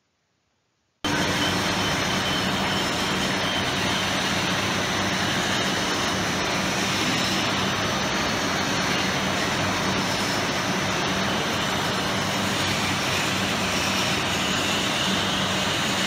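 Belt-driven axle journal turning machine running, with a railway wagon wheelset spinning as its axle journal is turned: a loud, steady mechanical din with a constant low hum that starts abruptly about a second in.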